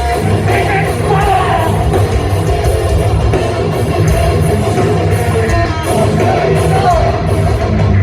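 Loud live hardcore punk played by a full band, with distorted guitars, pounding drums and a shouted vocal.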